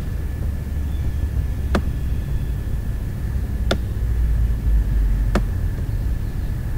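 Computer mouse clicking four times, about every one and a half to two seconds, over a steady low background rumble.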